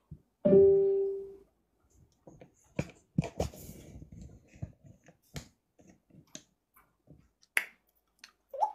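A short ringing tone that fades over about a second, then scattered clicks and taps from African grey parrots on their perches, with a brief rising chirp near the end.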